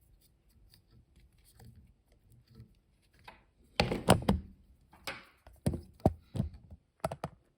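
A run of sharp knocks and clicks, about eight of them, in the second half, with faint rustling before: fly-tying tools and thread being handled at the vise while the finishing knots are tied at the head of the fly.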